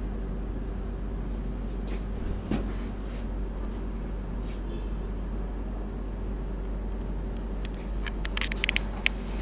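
Steady low rumble, with one sharp click a couple of seconds in and a quick run of clicks near the end.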